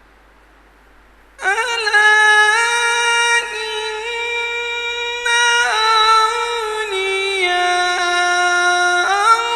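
A qari's voice in unaccompanied Quran recitation (tilawat), starting about a second and a half in. It holds long, high melismatic notes that step up and down in pitch, with a brief break about halfway through.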